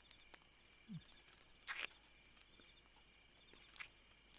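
Near silence: faint background ambience with a few soft clicks and a short rustle just before two seconds in, and another near the end.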